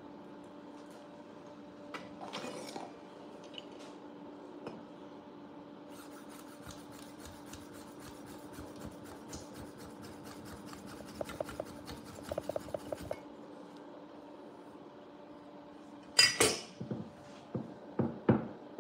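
Kitchen prep noises on a wooden cutting board over a steady low hum: a run of fine ticks and light knife knocks through the middle, then a sharp clatter about 16 seconds in, the loudest sound, followed by a few more knocks.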